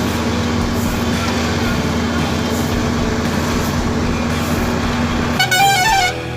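Large machine engine running with a steady drone. About five seconds in the drone drops away and a short, high, warbling run of tones sounds.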